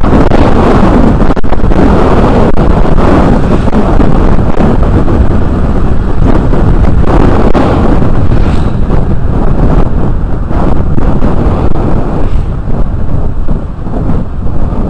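Wind rushing over the camera microphone on a moving motor scooter, with the scooter's running and road noise underneath: a loud, steady rush that eases a little near the end.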